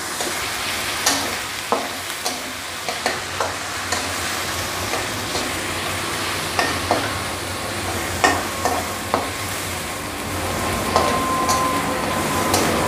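Chicken pieces with garlic, ginger and cumin paste sizzling in hot oil in a metal karahi, stirred with a spatula that scrapes and clicks against the pan at irregular intervals.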